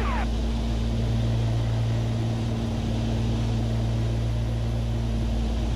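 Steady cabin drone of a Beechcraft Baron B55's twin piston engines and propellers in cruise. In the first moment the last of a repeating falling swept tone breaks off: an emergency locator transmitter's distress signal picked up on the guard frequency.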